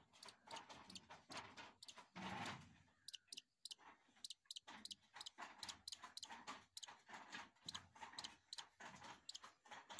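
Faint, quick clicking and rustling from a downy baby hawk eating, its beak working at the food, with roughly two to three sharp clicks a second after a softer rustling start.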